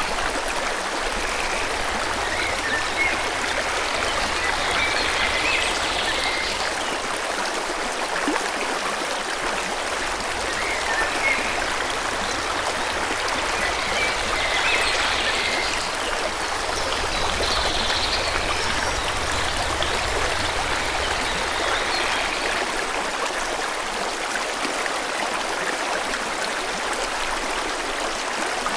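Forest stream flowing steadily, an even rush of water, with birds chirping faintly now and then over it.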